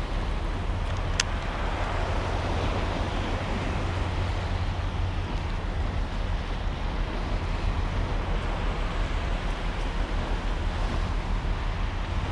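Wind rumbling steadily on an action camera's microphone over the wash of sea water around a kayak, with one short sharp click about a second in.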